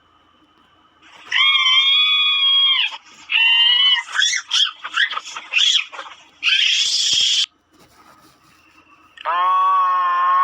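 A series of high-pitched screams: a long held cry, then a quick run of short yelps, a harsh shriek, and another long scream starting near the end, with short silences between them.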